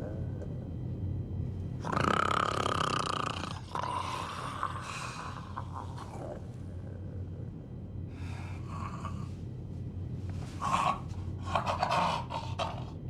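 A person snoring in irregular rasping bursts over a steady low hum. The longest and loudest burst comes about two seconds in, with a run of shorter ones near the end.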